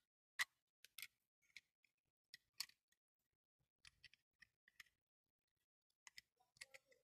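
Irregular light plastic clicks and ticks from a Trodat 4810 Printy self-inking date stamp being handled and its date bands set, about a dozen sharp clicks with the loudest about half a second in.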